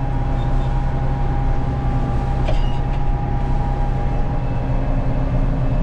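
Large farm machine's diesel engine running steadily under way, a constant low drone with a thin steady whine above it.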